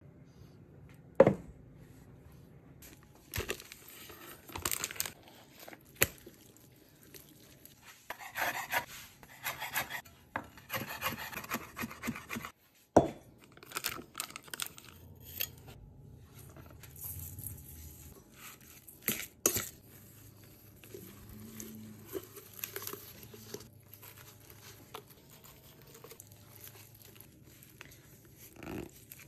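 Kitchen food-prep handling sounds: intermittent rustling and crinkling of plastic packaging, clinks and knocks against a stainless-steel mixing bowl and pans, with a few sharp knocks.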